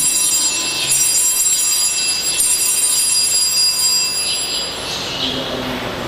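Altar bells rung at the elevation of the chalice during the consecration. Their many high ringing tones hang on and are struck afresh several times, every second or two.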